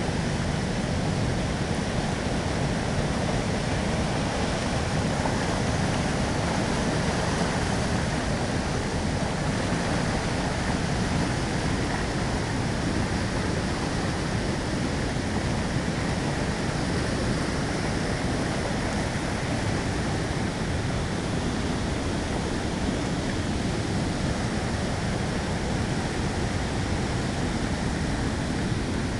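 Steady rushing of a large waterfall and its whitewater rapids, an even unbroken noise of falling water.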